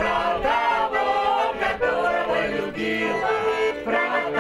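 An accordion playing a dance tune, with voices singing along.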